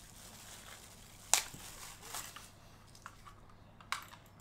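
Handling noise from a USB mouse cable being unwound: one sharp click about a second and a half in, then a few lighter clicks.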